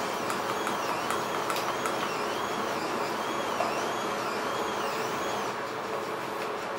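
Massage mattress vibration and kneading motors running with a steady hum and a faint whine that rises and falls in pitch about every half-second; the whine stops about five and a half seconds in as a new setting is selected on the remote.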